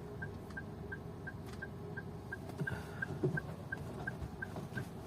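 Rapid, regular short beeps at one pitch, about three a second, from a car's warning or indicator beeper, over the low hum of the car cabin.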